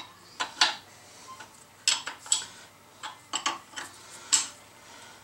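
Steel hold-down clamps and nuts clinking against a wrench and the steel jig plate as the plate is clamped down on a milling table: about ten sharp, irregular metal clinks.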